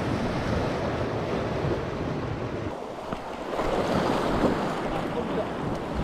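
Sea waves washing against a rocky shore, with wind buffeting the microphone; the wash swells louder about three and a half seconds in.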